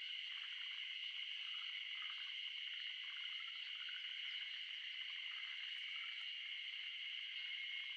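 Steady outdoor ambience: a continuous, even, high-pitched chorus that holds two constant pitches and does not change.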